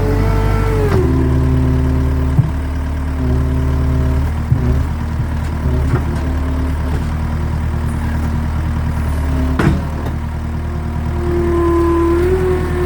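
An engine runs steadily, drops in speed about a second in and picks up again near the end. A couple of sharp knocks sound over it.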